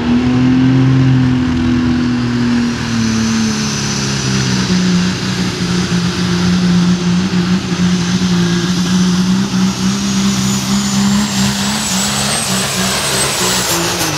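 Super stock diesel four-wheel-drive pulling truck's turbocharged diesel engine at full throttle under load, its engine note holding steady. A high turbocharger whistle climbs slowly in pitch through the pull and falls away near the end as the engine comes off the throttle.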